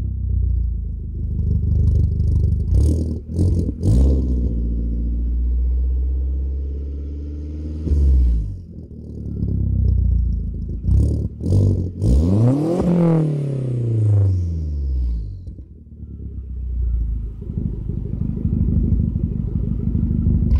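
Turbocharged VW Mk4 GTI 1.8T engine breathing through a 3-inch full exhaust with a MagnaFlow straight-through muffler, idling and being revved in several quick blips. The biggest rev comes about twelve seconds in, its pitch rising and then falling back, and the engine settles to a steady idle near the end.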